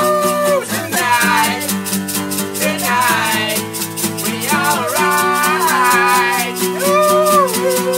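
Background music: a song with plucked guitar, held notes, a wandering melody line and a steady shaker rhythm.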